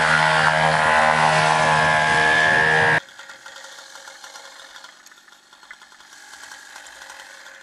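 Paramotor engine and propeller running at high power during a foot-launch takeoff run, a steady engine drone with a high whine. It cuts off abruptly about three seconds in, leaving only faint background noise.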